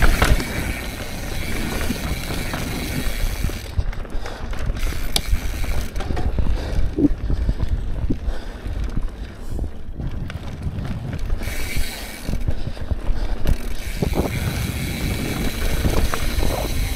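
Mountain bike riding over rocky dirt singletrack: tires rumbling and crunching on rock and gravel, the frame and chain rattling with many small clicks, and the rear hub ticking as the bike coasts.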